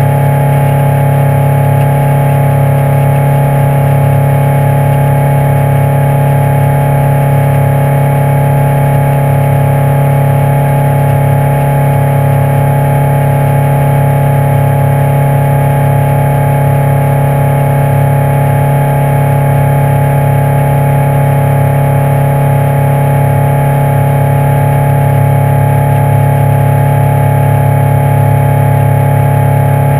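Yamaha F150 four-stroke outboard motor running steadily under way, heard up close from a camera mounted on the motor: a loud, even hum with a strong low drone that holds the same pitch throughout.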